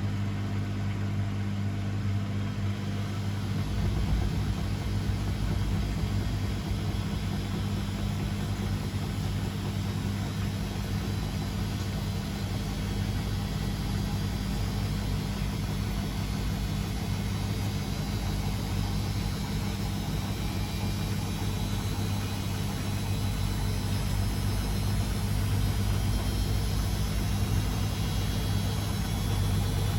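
Beko WMD 46160 washing machine running, a steady low hum under an even whooshing noise that grows a little louder near the end.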